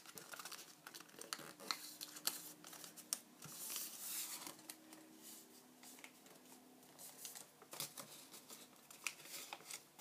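Faint rustling and crinkling of paper being handled and creased as it is folded, with scattered light clicks and taps.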